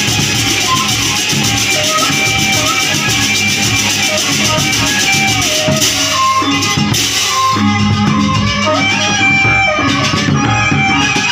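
Gendang beleq ensemble playing: a suling bamboo flute carries a stepping melody over the beat of large barrel drums and the ensemble's percussion.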